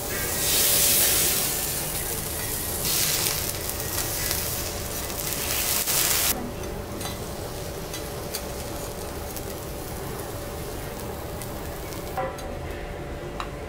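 Vegetables sizzling on a flat steel teppanyaki griddle as they are turned with a metal spatula. The hiss is loudest in the first few seconds and drops away suddenly about six seconds in, leaving a quieter sizzle and a couple of light metal clicks near the end.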